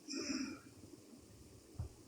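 A sleeping person snoring: a softer breath trails off in the first half second, then a pause between snores. A brief low thump comes near the end.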